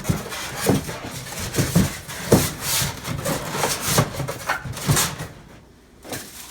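Packaging of an unboxed espresso machine being handled: irregular rustling and scraping with a few light knocks, easing off near the end.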